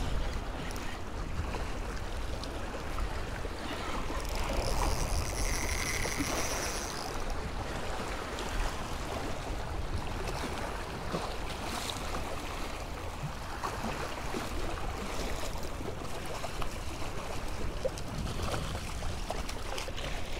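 Wind buffeting the microphone over small waves lapping and splashing against jetty rocks. A brief faint high-pitched whine comes about five seconds in.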